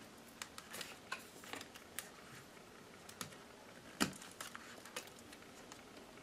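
Faint, scattered clicks and taps of fingers and fingernails working inside an open laptop, peeling the tape off the battery cable and handling its connector. The loudest click comes about four seconds in.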